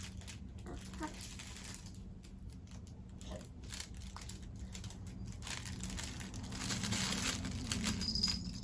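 Fabric crinkle toy crinkling and rustling as a baby grabs and shakes it, in irregular bursts that grow louder near the end.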